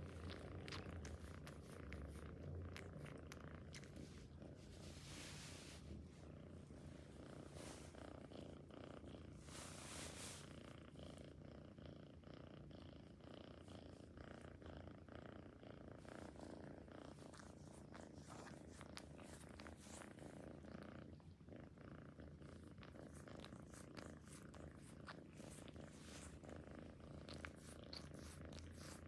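A domestic cat purring steadily and softly, with two brief hissy noises about five and ten seconds in.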